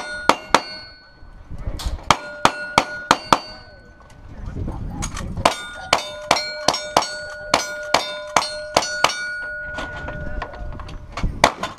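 Gunshots from a revolver and then a lever-action rifle at steel targets, each shot followed by the ringing clang of the hit steel plate. The revolver fires several shots in the first few seconds. After a pause, the rifle fires about ten quick shots, and one more shot comes near the end.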